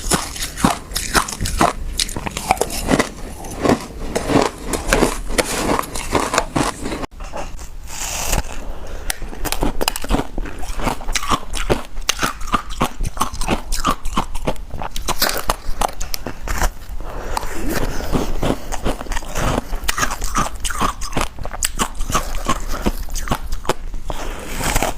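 Frozen passion fruit being bitten and crunched, with a rapid, irregular run of crisp crunches and chewing throughout. There is a brief break about seven seconds in.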